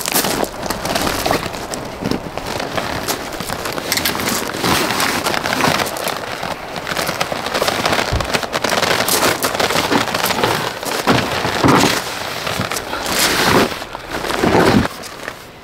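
Rustling and scraping of a bulky 43 kg air-tent carry bag being heaved onto a folding step and shoved into a car's boot, with scattered knocks and crackles of the fabric and frame.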